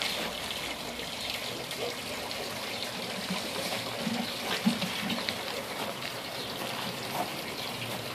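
Steady rushing hiss of running water, with a brief faint low sound about four and a half seconds in.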